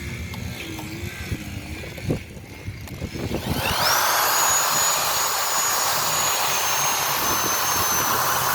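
Electric drill fitted with a 20 mm spade bit: after a few handling knocks it spins up about three and a half seconds in, with a rising whine that then holds steady as the bit bores through a one-inch wooden board.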